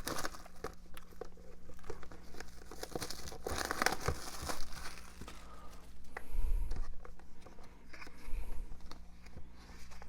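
Plastic shrink-wrap being torn open and peeled off a steelbook disc case, crinkling irregularly with scattered sharp crackles.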